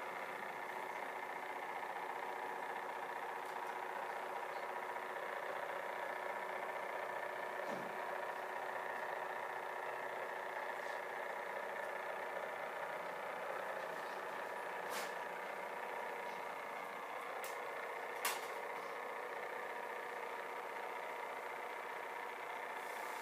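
Steady whirring hum of a small electric motor, holding one even pitch throughout, with a few brief clicks in the second half, one sharper than the others.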